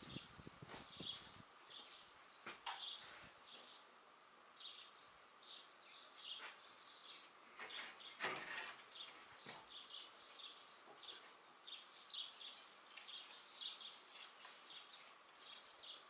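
Many small birds chirping and twittering continuously, with a few scattered knocks, the loudest about eight and twelve seconds in.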